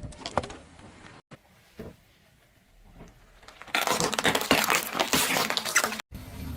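Dense crackling and crunching of brittle things being crushed under a car's tyres. It starts a little past halfway and stops abruptly near the end, after a quiet stretch with a couple of faint knocks.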